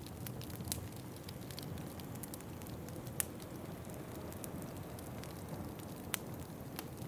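Wood fire crackling in a fireplace: irregular sharp pops and snaps, the loudest about three seconds and six seconds in, over a steady low rumble.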